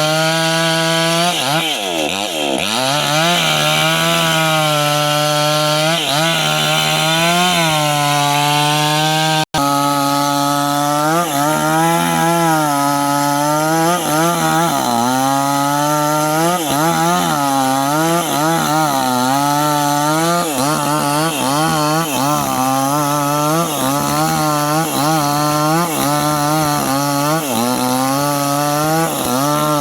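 Small two-stroke mini chainsaw running at high revs while cutting young teak, its pitch dipping and recovering again and again as the chain bites into the wood. It drops out for an instant about nine and a half seconds in, then carries on.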